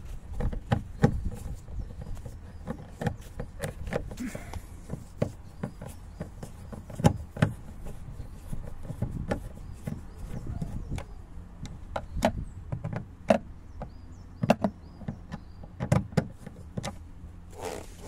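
Irregular clicks and taps of a screwdriver working against the plastic door card in the door-pull recess, reaching for the screw that holds the card.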